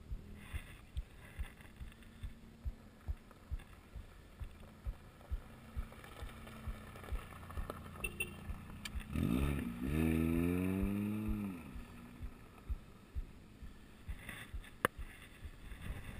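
A human heartbeat, quick and regular at about two beats a second, thumps low under everything, picked up through the rider's body by a GoPro. About nine seconds in, a car drives past, its engine note rising and then falling over two or three seconds, louder than the heartbeat.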